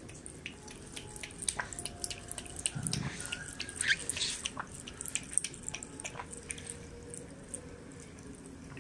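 Domestic cat lapping water with its tongue: quick, irregular wet clicks and drips that thin out near the end.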